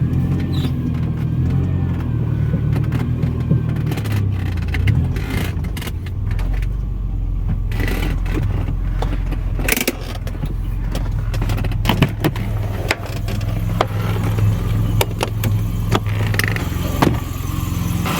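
Alfa Romeo 164's 2.0-litre V6 turbo engine running, a steady low drone that shifts slightly in pitch, with scattered sharp clicks and knocks over it.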